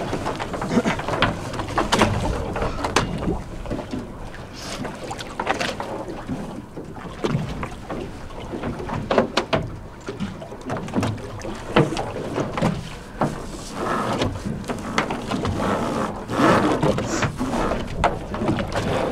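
A large shark thrashing at the surface beside a fishing boat: water splashing and slapping against the hull, with irregular sharp knocks and splashes throughout.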